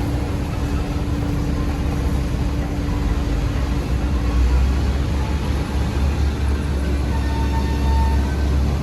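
Heavy diesel construction machinery running steadily with a deep, low rumble; a steady hum over it fades out about halfway through.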